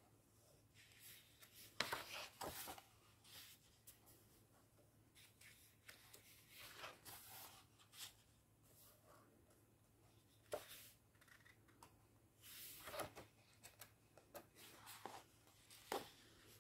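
Large paper pages of a colouring book being handled and turned by hand: faint rustles and soft flaps every few seconds, with hands brushing across the paper.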